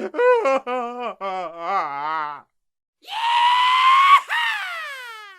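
Cartoon comedy voice effects: a quick run of high, pitched chattering giggles, then after a short pause a long wailing scream that rises slightly, breaks about four seconds in and slides down in pitch as it fades out.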